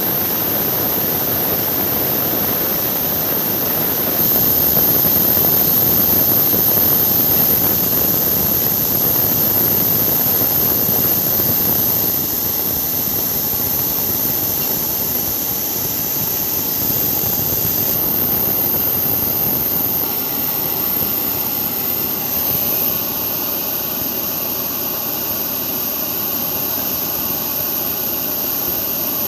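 Airbus A320neo turbofan engines running at taxi power: a steady jet rush with a high-pitched whine, louder for several seconds a few seconds in, then easing.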